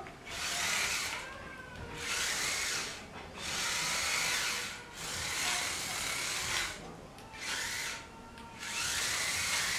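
Two small DC gear motors of a robot car whirring in spurts of about a second each, starting and stopping about six times as the car is driven.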